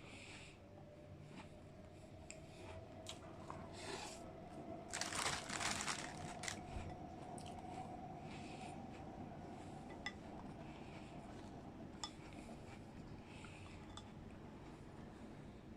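Close-miked eating sounds from a mukbang: quiet mouth noises and small clicks, with a louder burst of crunching and rustling about five seconds in.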